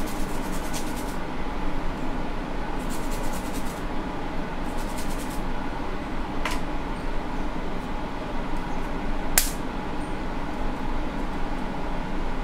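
Steady whir of a fan-driven bench machine running at a phone-repair bench. Short rustling stretches come in the first few seconds as a cloth is wiped over the work mat, and there are two small sharp clicks, the louder one about nine seconds in.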